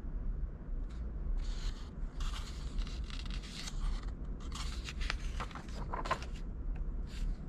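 Paper pages of a hardcover picture book being handled, turned and pressed flat by hand: a string of short paper rustles and scrapes.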